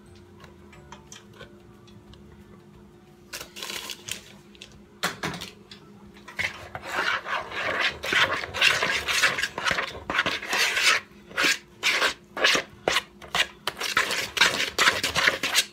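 Metal spoon stirring and scraping thick cornbread batter in a plastic mixing bowl, working in added flour. After a quiet start with a couple of single scrapes, quick repeated stirring strokes begin about six seconds in and continue.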